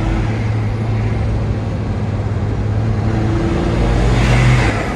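Nissan GQ Patrol being driven on a test run after a rear differential overhaul: steady engine and road noise, swelling louder about four seconds in and easing off near the end.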